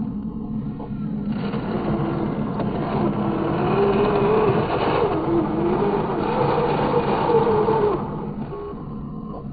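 Electric motors and plastic gearboxes of a radio-controlled Huina construction model whirring. The whir grows louder about a second and a half in, its pitch wavers up and down with the load, and it drops back near the end.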